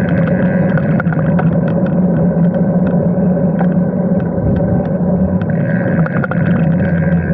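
Wind rushing over the microphone of a handlebar-mounted camera on a moving road bike: a loud, steady rush with a low hum, broken by many small clicks.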